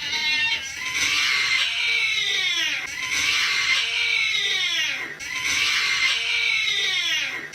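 Looped cat-meme sound clip of a cat's distorted cry. It repeats almost identically about every two seconds, three times, each pass ending in falling pitch sweeps.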